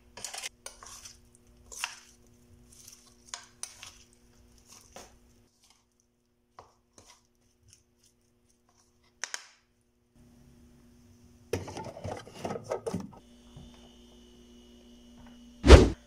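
Wooden spatula tossing a salad in a large bowl: scattered clicks and scrapes against the bowl in the first few seconds, a pause, then another quick run of knocks. A single loud thump comes near the end.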